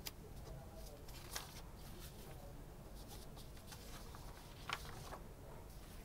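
Faint taps and scratches of a stylus writing on a digital board, with two sharper clicks, one about a second and a half in and one near five seconds, over a low steady hum.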